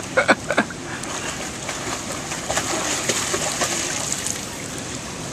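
Swimming-pool water splashing and sloshing in a steady run, with scattered small splashes.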